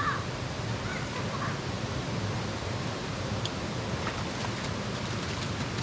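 Steady rushing of flowing stream water, an even noise without rhythm, with faint voices near the start.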